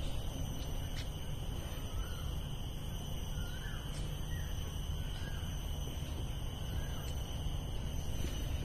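Scattered faint bird chirps, about six short calls spread over several seconds, over a steady low rumble and a thin, steady high tone.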